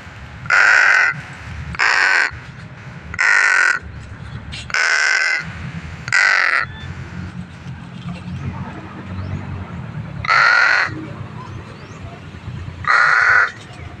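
Pet crow cawing: seven caws of about half a second each, five at a steady pace, then after a pause of about four seconds two more. A low rumble runs underneath.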